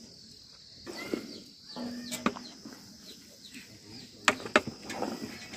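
Wooden paddle stirring raw chopped meat in a large aluminium pot, with a few sharp knocks against the pot, over birds chirping.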